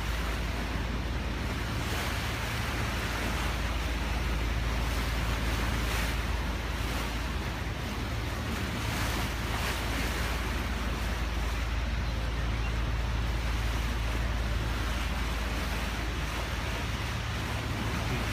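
Steady rush of wind and water over a constant low drone, heard aboard a moving cruise boat.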